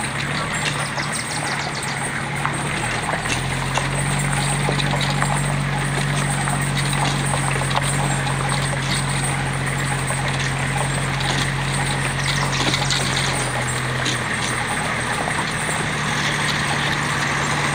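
Tow vehicle's engine running steadily at low speed while it pulls a trailer-mounted pirate ship. The hum steps up a few seconds in and dips briefly about 14 seconds in, under scattered knocks and rattles from the trailer and its load.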